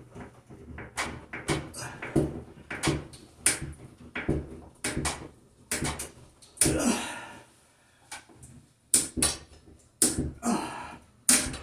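Irregular sharp clicks and knocks of a hand screwdriver driving a screw through a bathroom exhaust fan's sheet-steel housing into the wood above, with the housing rattling as it is worked.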